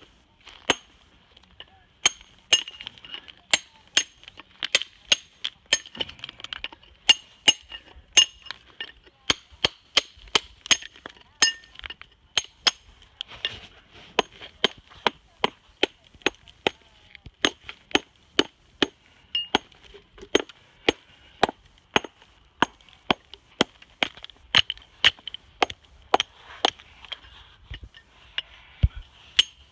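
Hammer striking a rough Japanese natural whetstone (Kyoto sunita), repeated sharp clinking blows about one to two a second as the stone is chipped and split along its weak layers. The ring of each blow is a tap test that shows where the stone's bond is weak.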